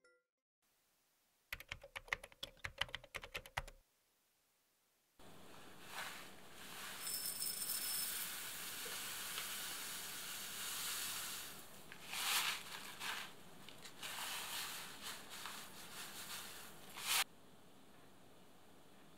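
A quick run of keyboard-like clicking for about two seconds, then, after a short pause, a soft hissing rustle of rice flour being poured and handled in a glass bowl, with a few louder scrapes that stop sharply near the end.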